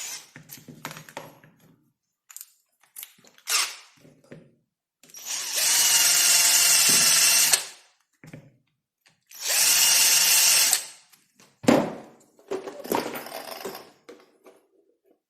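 Electric drill running in two bursts, about two and a half seconds and then about a second and a half, under downward pressure as it drills. Short clicks and handling knocks come before, between and after the runs.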